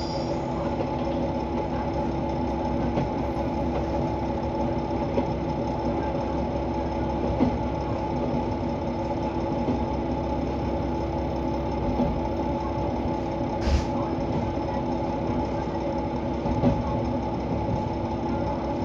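KiHa 120 diesel railcar's engine idling steadily with the train at a standstill, just after a squealing stop. A few light clicks, the sharpest about fourteen seconds in.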